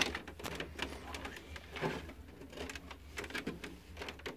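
Faint, scattered light clicks and taps as plastic toys and the camera are handled and moved about.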